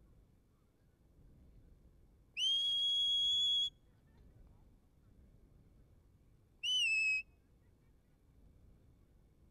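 Sheepdog handler's whistle commands to the working dog: one long whistle that rises quickly and then holds steady, and about three seconds later a short whistle that rises and falls.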